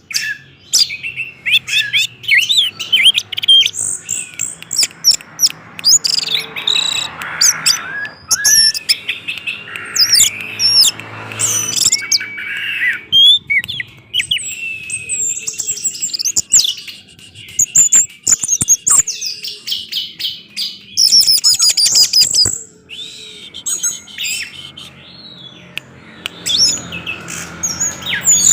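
Orange-headed thrush singing continuously: a rapid, varied run of short whistled notes and sliding phrases, with sharp clicks mixed in.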